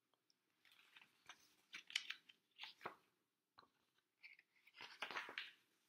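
Paperback picture book's pages rustling and crackling as they are turned by hand: a string of soft, quick paper sounds.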